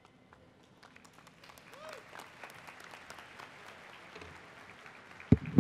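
An audience applauding, building from about a second in and tapering off near the end, with one loud thump just before it ends.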